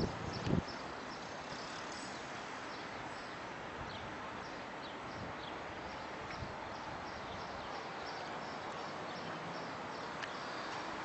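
Steady outdoor background noise with faint, short high chirps repeating every half second or so. A few low bumps from the phone being handled in the first half second.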